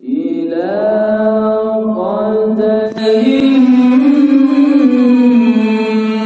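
A man's voice reciting the Qur'an in the melodic tilawah style, holding long sung notes that step and curve in pitch. About three seconds in, the sound turns suddenly brighter and louder.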